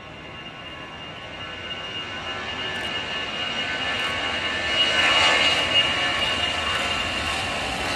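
Jet engines of a MYAirline Airbus A320 moving along the runway: a steady high whine over a broad rush that grows louder as the aircraft passes, loudest about five seconds in.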